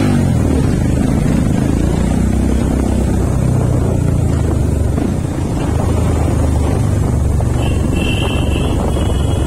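Motorcycle engine running steadily at low speed in slow traffic, with wind noise on the helmet-mounted microphone. A short, high-pitched tone, a vehicle horn, sounds near the end.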